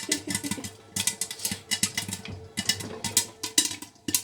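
Popcorn kernels popping in hot oil in a pan: quick, irregular pops, several a second.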